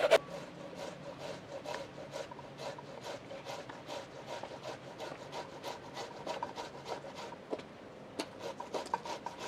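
Onion being grated on a flat metal hand grater: a steady run of short rasping strokes, about three a second.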